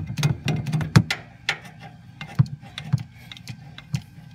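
Hand grease gun being worked, forcing grease into the gearbox atop a fifth-wheel landing gear leg: a string of irregular clicks and clacks, roughly two a second, the loudest about a second in.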